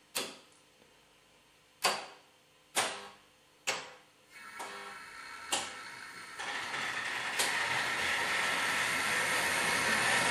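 Six sharp clicks about a second or two apart from the automatic control of a Trix Express H0 model railway switching. Then a model train running along the track, growing louder over the second half as it passes close by.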